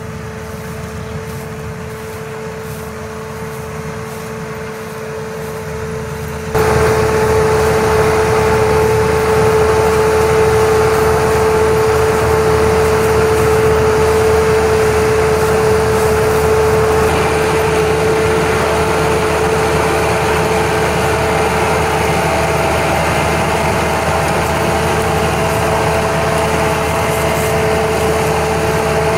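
CH250S rice combine harvester running steadily while harvesting, its engine and threshing machinery carrying a steady whine. It is distant at first and becomes much louder and closer about six seconds in.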